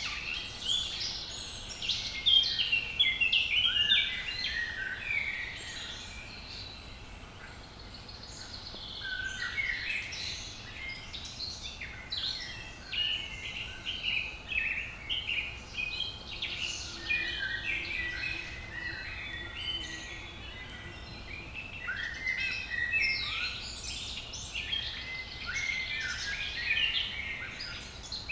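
Woodland songbirds singing: many overlapping chirps and short sweeping notes from several birds, in busier spells.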